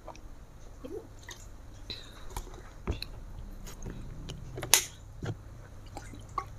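Close-miked eating and drinking sounds: chewing, wet mouth clicks and swallowing, with gulps of water from a plastic bottle. A sharp click a little before five seconds in is the loudest sound.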